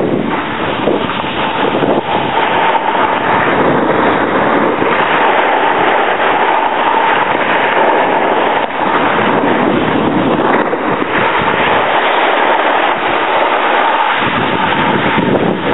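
Wind buffeting the microphone, mixed with a steady crackly scraping of snow slid over at speed as the camera-holder rides down the slope.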